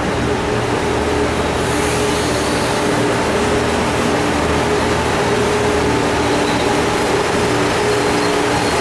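Stainless-steel passenger train cars rolling past along the platform: a steady, loud rumble of wheels on rail with a few steady tones running through it.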